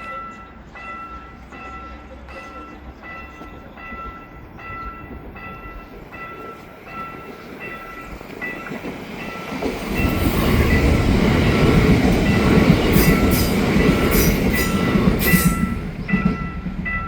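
Railroad crossing warning bell ringing with an even electronic ding about one and a half times a second. About ten seconds in, an ITX-Maeum electric multiple-unit train passes over the crossing: a loud rush of train noise with sharp wheel clicks near the end, the bell still ringing through it.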